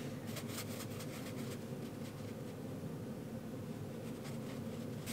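Large round watercolor brush stroking paint across textured watercolor paper: soft, repeated brushing scrapes, thickest in the first second and a half and again near the end, over a steady low hum.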